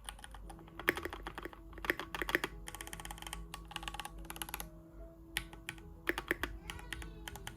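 Keys on a Keychron Q1 aluminium-bodied mechanical keyboard with red linear switches being pressed, clacking in irregular clusters as they are tried row by row, each row sounding slightly different.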